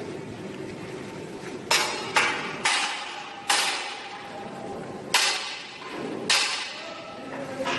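Six sharp metallic clanks at uneven intervals, each ringing briefly, over a steady background machine hum.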